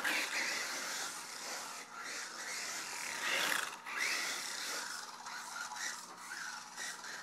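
Brushed electric motor and gears of an ECX Smash 1/18 RC truck whining as it drives across carpet on a 7.2 V battery pack, rising and falling in pitch several times.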